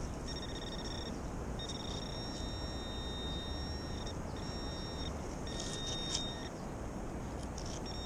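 Garrett Pro-Pointer AT pinpointer sounding its high, steady buzzing alert, which signals a metal target close to the probe tip. It comes in five stretches, the longest about two and a half seconds, over a steady hiss.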